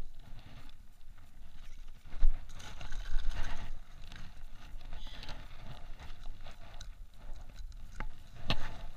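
Outdoor noise from a fishing kayak on the water: uneven gusts of wind rumbling on the microphone, with scattered small knocks of rod and reel handling and one sharp knock near the end.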